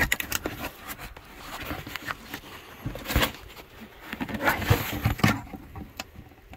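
Handling noise from a plastic water jug being lifted and fitted under a birch sap spile: irregular scrapes, knocks and rustles against the bark, with a louder knock about three seconds in and a cluster near five seconds.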